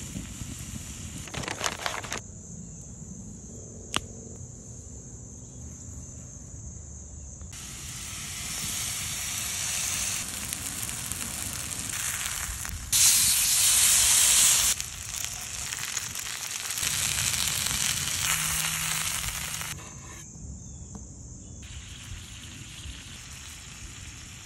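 Food sizzling in a hot cast-iron skillet over a wood fire: diced potatoes frying, then a steak laid in the pan. The sizzle swells about a third of the way in, is loudest for a couple of seconds just past the middle, and dies back well before the end.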